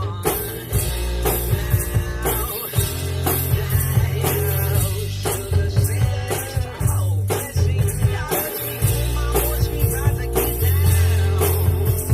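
Rock-style music with a steady drum beat about twice a second over a deep, sustained bass line.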